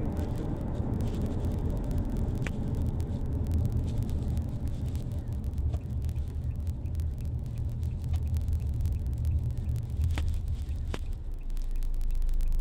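Steady low rumble of a vehicle in motion, with a few faint sharp clicks.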